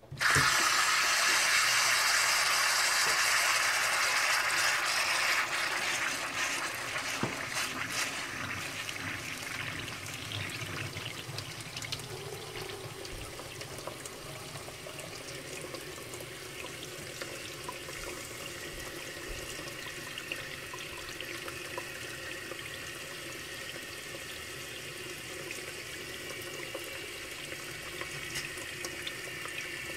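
Hot water from a kitchen faucet aerator running into a bucket in the sink. It starts suddenly as the tap opens and is loudest for about the first five seconds, then settles to a quieter, steady rush as the bucket fills and the aerator ends up under the water.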